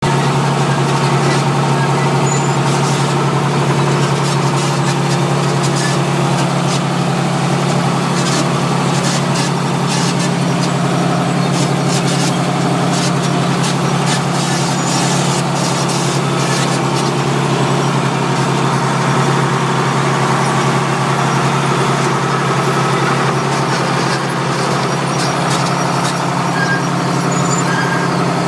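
John Deere 4020 tractor's six-cylinder engine running steadily under load while pulling a row-crop planter, heard from the cab.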